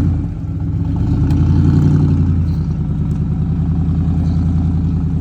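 A vehicle engine running steadily at low speed as it eases the boat trailer forward. It dips briefly near the start and picks up again about a second in.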